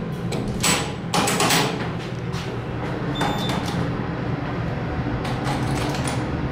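1994 Montgomery KONE hydraulic elevator. Its doors slide shut with a rumble in the first second or two, then a steady low hum follows as the car travels down.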